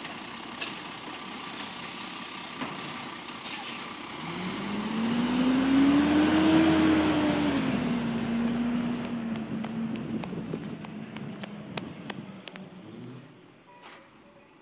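Automated side-loader garbage truck: a few knocks as the arm empties a bin, then the diesel engine revs up as the truck pulls away past, its pitch rising then falling as it fades down the street. A thin high squeal comes in near the end.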